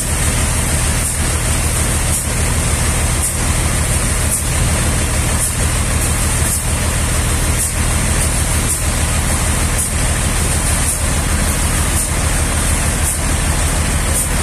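Sawmill machinery running steadily: a constant low engine hum under a loud high-pitched whine, with a regular pulse about once a second.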